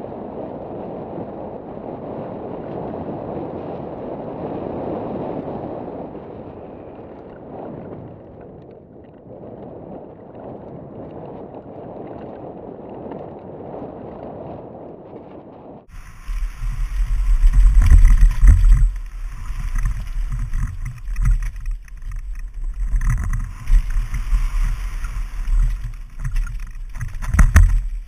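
Mountain bike riding heard through a helmet-mounted action camera's microphone: a muffled, steady rush of wind and tyre noise. About sixteen seconds in it cuts to another camera's louder recording, full of low wind buffeting on the microphone and rumble and knocks from the bike jolting over the trail.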